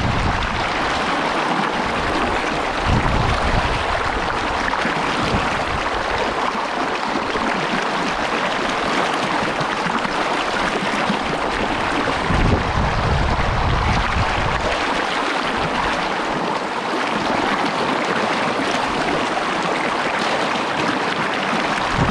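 Big Rock Creek rushing steadily over rocks, a continuous even water noise, with wind buffeting the microphone now and then in low rumbles.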